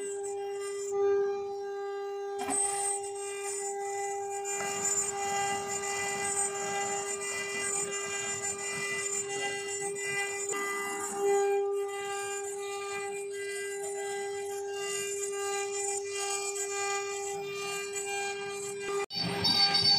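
CNC router spindle running with a steady high whine while its bit engraves a stone slab under a water coolant jet, with a rough grinding noise from the cutting. It cuts off suddenly near the end.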